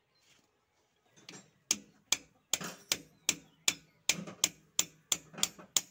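Sharp metal clicks, evenly spaced at about two to three a second, starting nearly two seconds in, as a part is worked into a tractor's power steering cylinder by hand tool.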